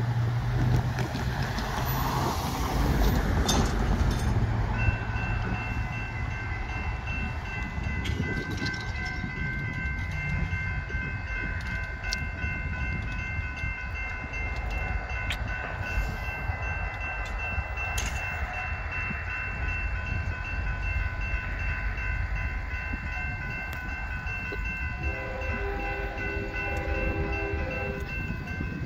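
A car drives past in the first few seconds. About five seconds in, the grade-crossing warning bell starts ringing steadily as the gates come down. Near the end, the approaching Union Pacific freight locomotive sounds its horn for about three seconds.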